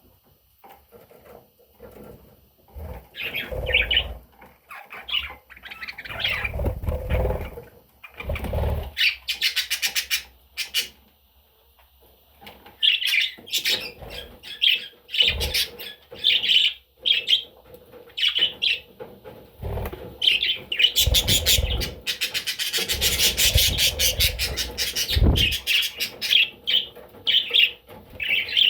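Budgie chirping and warbling in repeated bursts, with a few low thuds mixed in.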